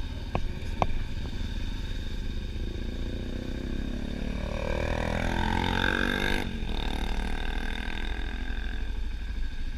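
BMW F650GS motorcycle engine running at low riding speed with a steady rumble. Two sharp clicks come just under a second in, and the engine pitch climbs from about four seconds in, then drops away suddenly about two and a half seconds later.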